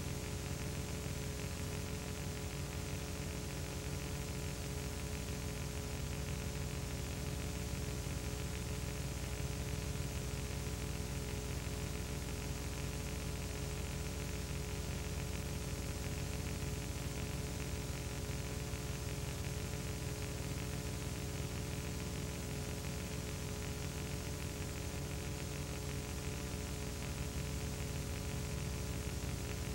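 Steady hiss and electrical hum with no other sound: the noise floor of a silent home-movie transfer.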